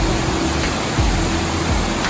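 Waterfall rushing steadily, mixed with soft background music of held low notes.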